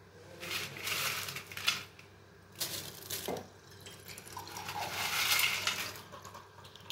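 Dry whole red chillies rustling against each other and the steel mixer-grinder jar as they are packed into it, in three bursts of dry rustling with small clicks.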